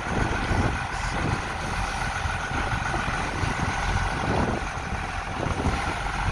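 Wind buffeting the microphone on the deck of a boat under way, a gusty low rumble over a steady faint drone.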